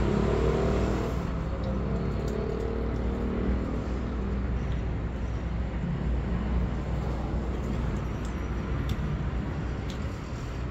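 Steady low rumble of outdoor background noise, with a couple of faint clicks about nine seconds in.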